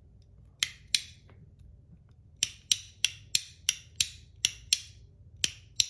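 PEI and aluminum Battle Master 1.1 fidget working its backwards click: about a dozen sharp, loud clicks, mostly in pairs about a third of a second apart.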